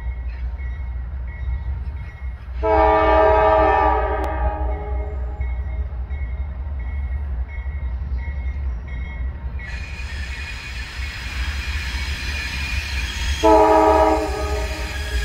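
Rail inspection train approaching: its air horn sounds a chord, one long blast a few seconds in and a shorter one near the end, over a deep steady rumble. About two-thirds of the way through, the hiss and rumble of the train rolling on the rails grows louder as it nears.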